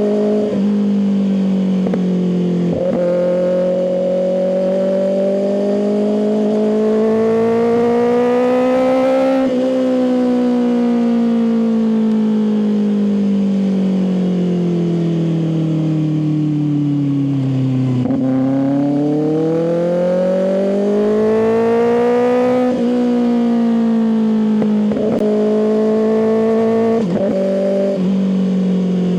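Kawasaki ZX6R inline-four sport bike engine through an M4 aftermarket exhaust, heard while riding. Revs climb steadily for several seconds, then wind down slowly to about the middle, pull up again, and rise and fall in short steps with quick gear changes near the end.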